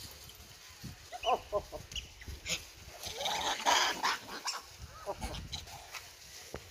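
Rhesus macaques crowding a plastic bag of plums, making short squeaky calls, with rustling of the bag as fruit is pulled out. A louder noisy flurry comes about three to four seconds in.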